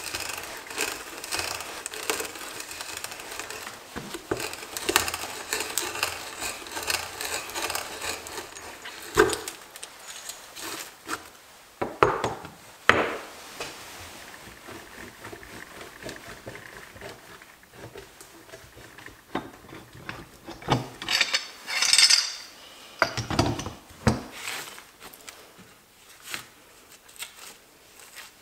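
Old hand brace with a 1-inch bit boring through a wooden board, the bit scraping and cutting shavings in a steady rasp with a pulse at each turn for about the first nine seconds. After that come scattered wooden knocks and clatter as the brace and block are handled, with a cluster of them a little past the middle.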